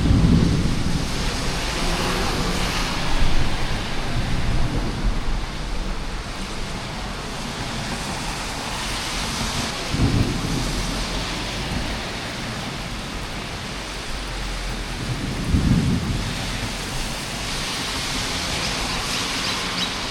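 Heavy rain falling steadily with thunder: a sudden loud clap right at the start, another about ten seconds in and a third about fifteen seconds in, each with a deep rumble.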